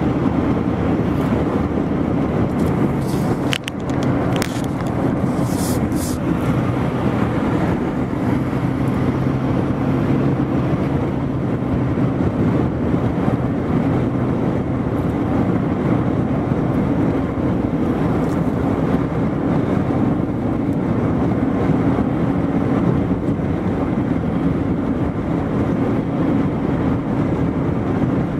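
Car engine and road noise heard inside the moving car's cabin, a steady drone, with a few brief knocks about three to six seconds in.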